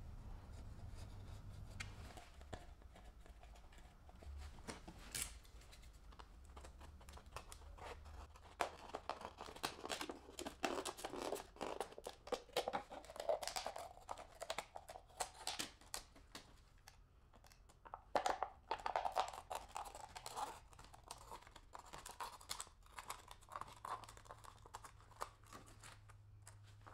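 Utility knife blade cutting through a thin clear plastic bottle, which crinkles as it is handled. Short, irregular scrapes and clicks come thick and fast after the first several seconds.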